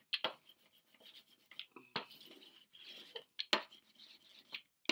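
A hand brayer rubbed in short back-and-forth strokes across wet acrylic paint on canvas paper, spreading the background coat: irregular scratchy rubbing with a few sharp taps against the board.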